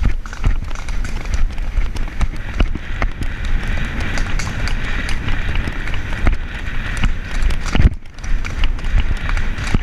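A palomino mare's hooves beating fast on a dirt woodland track, heard from the rider's helmet, with steady wind rumble on the microphone.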